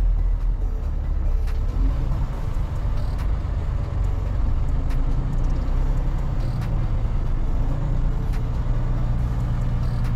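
Semi-truck's diesel engine running steadily at low speed while the truck is manoeuvred into a parking spot, heard from the cab, with a few scattered clicks.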